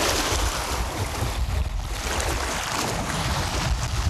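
Storm wind gusting across the microphone, a rough low rumble under a steady rush, easing briefly a little over a second in.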